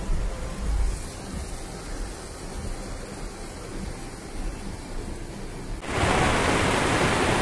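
Steady rain noise with a low rumble, then at about six seconds a sudden change to much louder rushing floodwater pouring down a street, a steady, even rush.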